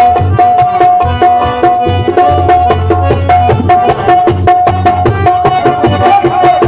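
Loud Punjabi devotional folk music played live through loudspeakers: a fast, driving drum rhythm under one high melody note that breaks off and comes back again and again.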